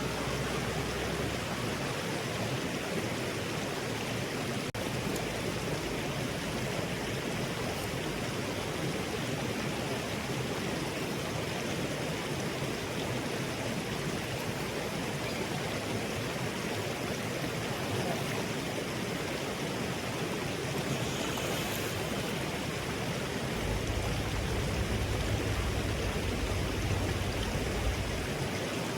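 Mountain river water rushing steadily. A low rumble joins in for a few seconds near the end.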